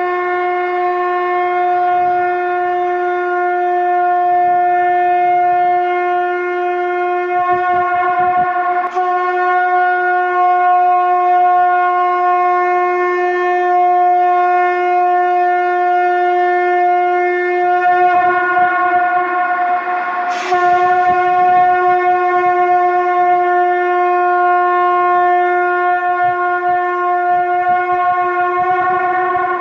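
A shankh (conch shell trumpet) blown in one long, steady, buzzing note with many overtones. The tone is briefly roughened twice, about nine and twenty seconds in.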